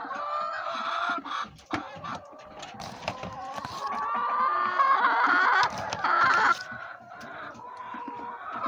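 Domestic chickens clucking in the coop, with one long drawn-out call rising and growing louder from about four seconds in, and a few light clicks.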